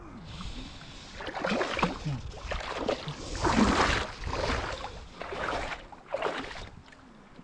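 Shallow lake water sloshing and swishing in a run of about five strokes, as someone wades through it barefoot.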